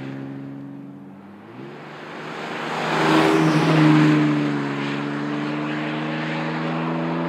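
Ford Ranger V6 running through a Flowmaster American Thunder cat-back exhaust with a Super 50 muffler and dual tailpipes. At first it fades as the truck drives off. Then it gets louder as the truck passes close by, loudest about three to four seconds in with a slight drop in pitch, and stays steady as the truck pulls away.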